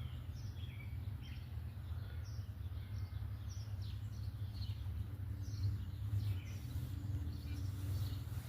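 Small birds chirping, many short falling chirps overlapping one another, over a steady low rumble of background noise.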